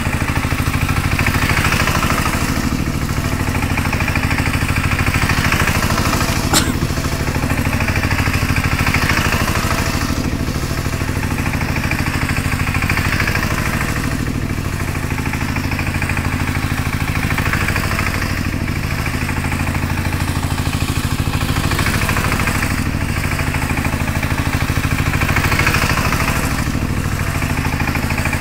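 Two-wheel power tiller's single-cylinder diesel engine running steadily as it is driven in circles, rising and falling in loudness as it comes nearer and moves away. A single sharp click about six and a half seconds in.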